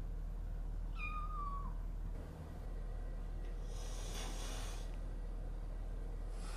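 A kitten gives one short mew that falls in pitch. A couple of seconds later a cat hisses, breathy and about a second long.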